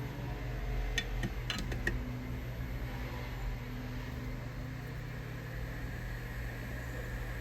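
A few light metallic clicks and clinks of small tools about one to two seconds in, over a steady fan-like hum with a faint high whine.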